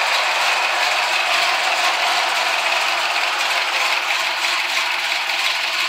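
Ford 5.0-litre (302) small-block V8 idling, heard up close under the hood as a steady mechanical clatter with little low rumble.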